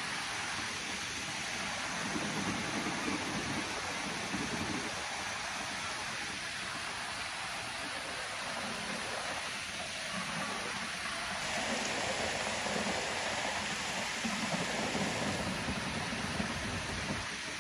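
Heavy rain falling steadily on trees, grass and pavement: a dense, even hiss that swells a little now and then.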